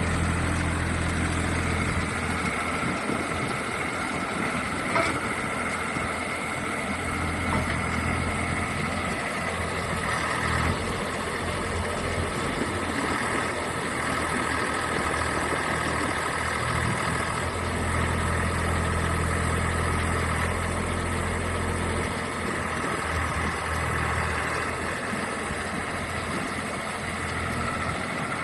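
Mini crawler excavator's engine running steadily, its low hum swelling and easing every few seconds as the load changes, with a faint steady whine above it. A sharp click about five seconds in.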